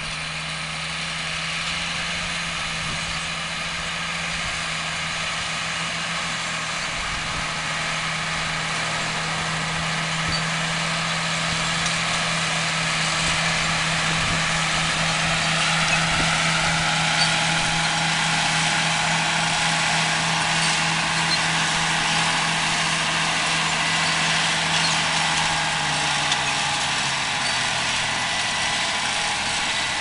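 Diesel engine of a large John Deere row-crop tractor running steadily under load as it pulls a planter, growing louder as it draws near, with a high whine over it. Its low note drops a little near the end.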